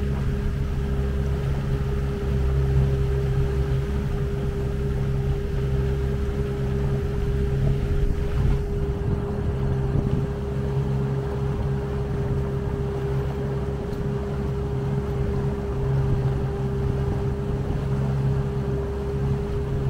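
Outboard motor of a Tahoe T16 boat running steadily underway, a constant hum with wind and water noise over it.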